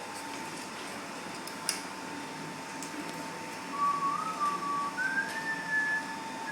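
A person whistling a tune, starting a little past halfway, with a steady high thin tone and low room noise underneath and a single sharp click before the whistling starts.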